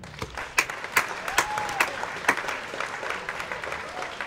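Dense applause, many hands clapping at once, starting abruptly out of near silence.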